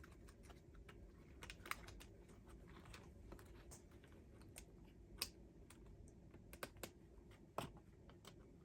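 Faint, scattered clicks and taps of a laptop's plastic case and keyboard being handled during disassembly, with a few sharper clicks about 2, 5 and 7.5 seconds in.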